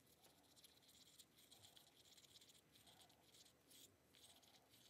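Faint, repeated scratching of a wooden stir stick against the inside of a small plastic cup, mixing epoxy resin with blue embossing powder in quick strokes.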